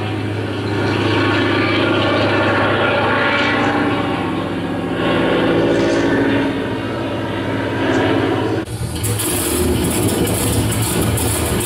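Vintage propeller aircraft piston engine running with a steady drone that swells a few times. About eight and a half seconds in, it cuts suddenly to a different engine recording with more hiss.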